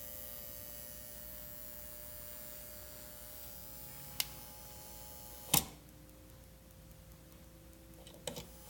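Cuckoo electric rice cooker on mains power, giving off a faint, steady high-pitched electrical whine made of several tones: the abnormal noise it makes whenever it is plugged in. A light click comes about four seconds in and a sharper click about a second and a half later, after which the whine falls away; a few light clicks follow near the end.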